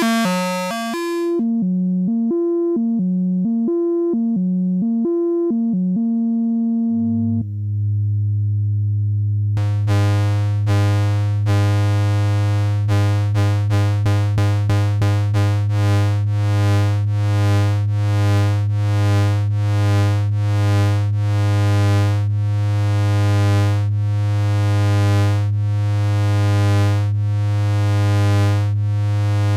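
Analog eurorack synthesizer patch through the Schlappi Engineering Angle Grinder quadrature oscillator and waveshaper. It starts with an electronic tone alternating between two notes. A steady low drone comes in about seven seconds in. From about ten seconds a bright, buzzy tone pulses about once a second, speeding up briefly before settling back.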